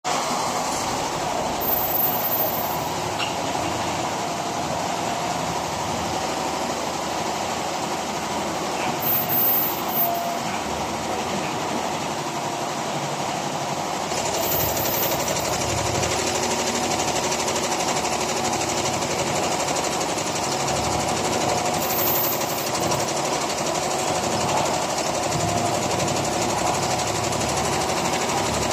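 Industrial quilting and embroidery machine running steadily, a dense mechanical clatter of needles stitching. It gets slightly louder about halfway through.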